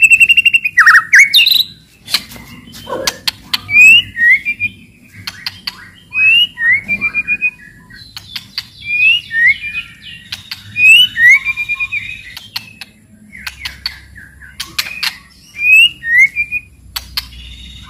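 White-rumped shama (murai batu) singing in a loud 'cetrekan' style: phrases of sharp dry clicks and crackles mixed with short rising whistled notes, repeated with brief pauses between phrases.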